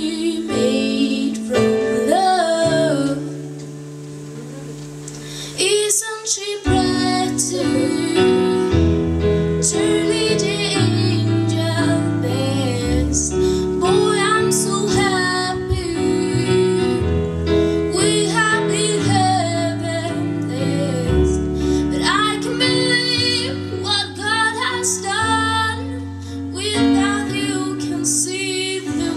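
A woman singing into a microphone over an instrumental accompaniment of held chords and a bass line. About three seconds in, the accompaniment thins to a single low note and the singing goes quiet; a fuller accompaniment comes back about six seconds in.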